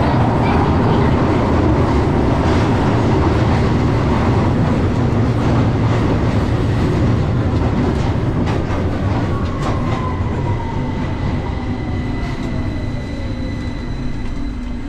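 London Underground Victoria line train heard from inside the carriage, running through the tunnel with a loud steady rumble of wheels and motors. About nine seconds in a whine falls in pitch and the rumble eases as the train slows, braking into a station.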